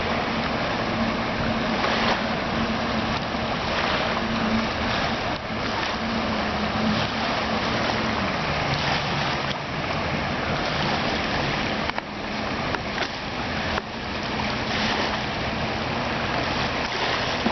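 1993 Seaswirl Striper 210's engine running as the boat passes close by, dropping in pitch about eight seconds in as it throttles back. Wind and lapping water noise sit over it.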